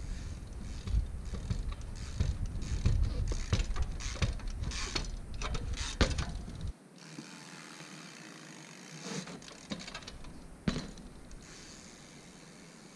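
Trials bike on paving: the rear freewheel hub ratchet clicking in quick bursts, with tyre and frame knocks as the bike hops, and one sharp impact about six seconds in. After that it goes quieter, with a few separate knocks.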